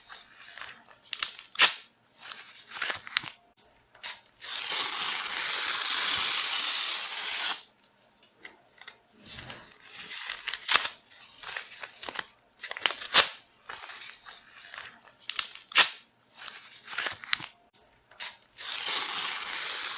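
Paper being torn: a string of short, sharp rips, with a long continuous tear of about three seconds starting some four seconds in and another long tear beginning near the end.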